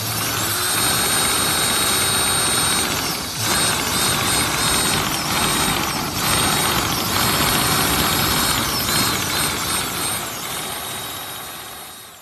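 Cordless drill spinning a wooden model engine: the drill motor's high whine speeds up and slows as the trigger is worked, over a dense rattle from the wooden engine's moving parts. It dips briefly twice, about three and six seconds in, and dies away at the very end.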